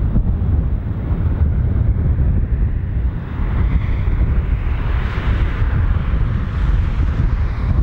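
Twin-jet airliner taking off under full thrust: its engine roar swells from about two seconds in and peaks just after it lifts off. Heavy wind buffeting on the microphone makes a loud low rumble throughout.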